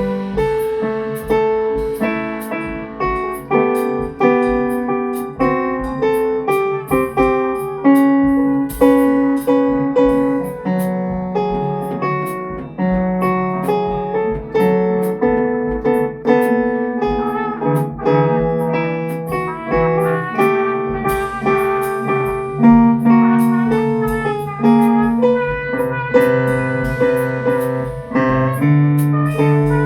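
Keyboard with a piano sound playing a slow melody over sustained chords, backed by a steady drum beat with cymbal hits.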